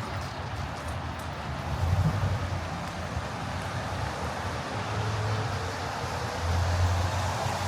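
Street traffic on wet pavement: a steady hiss of tyres on the wet road with a low engine rumble that swells a few times as vehicles pass.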